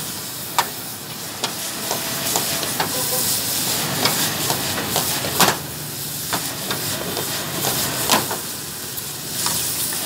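Meat stir-frying in a steel wok: a steady sizzle, with the metal ladle scraping and clanking against the wok at uneven intervals.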